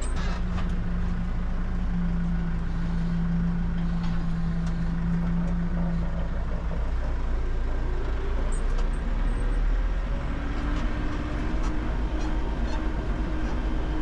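New Holland 4030 tractor running and driving, heard from inside its cab: a steady low engine drone with a held tone for the first half, replaced by a higher one in the last few seconds.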